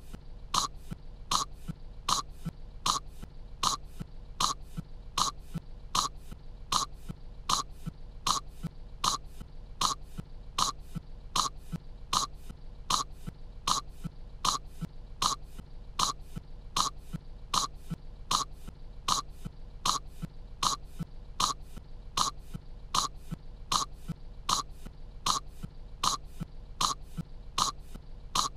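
A young girl's short coughs, from an animated character's voice, repeating evenly about one and a half times a second as an unchanging loop.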